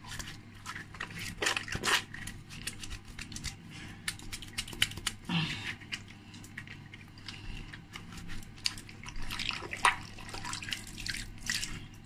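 Hands being washed under a running tap at a sink, with irregular splashes of water.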